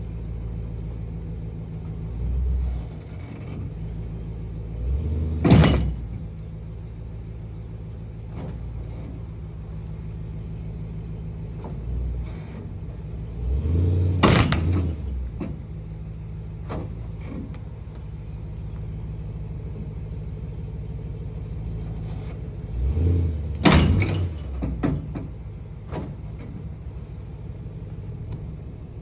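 Dodge pickup truck engine running under load as it pulls on a tree stump, revving up three times, each surge ending in a sharp bang or jolt; the stump holds.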